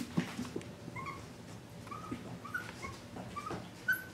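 Five-week-old mini Bernedoodle puppies whimpering: short, high whines scattered through, with a few soft knocks near the start.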